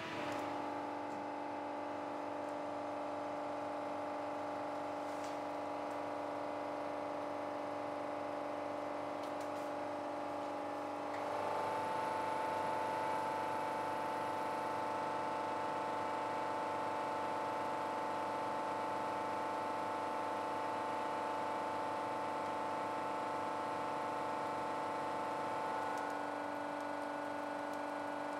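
Hydraulic compression-testing press running with a steady multi-tone whine while it loads a rammed-earth test cube. About eleven seconds in it grows louder and a higher tone joins, then it eases back near the end.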